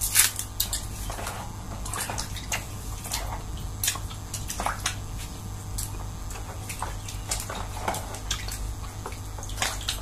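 Hands sloshing pieces of chewing gum about in a plastic basin of water, giving irregular small splashes and drips.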